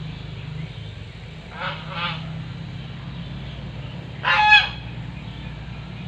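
A goose honking: two short honks about a second and a half in, then a louder, longer honk a little past the four-second mark, over a steady low hum.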